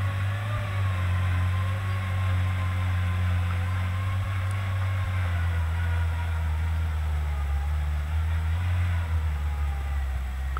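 Engine of a homemade tractor running steadily under load as it pulls a plough through the soil, with a low rumble and a drone whose pitch sinks slightly over the course of the run.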